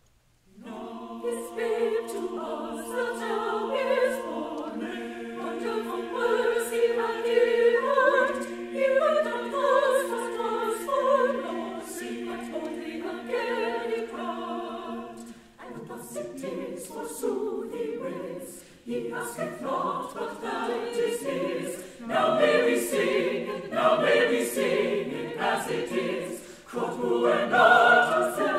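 Large mixed choir singing, starting about half a second in. Long held chords over a sustained low note give way, about halfway through, to a more moving passage with crisper consonants.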